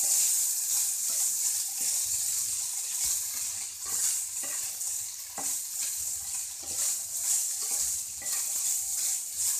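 Schezwan fried rice with vegetables sizzling in a pan over high heat while it is stirred and turned, with short scrapes against the pan about once or twice a second over a steady sizzle.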